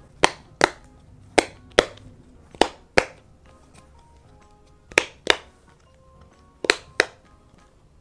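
Silicone bubbles of a flower-shaped Dimple Digits fidget toy being pressed through its plastic frame, giving sharp popping clicks. There are ten pops in five quick pairs.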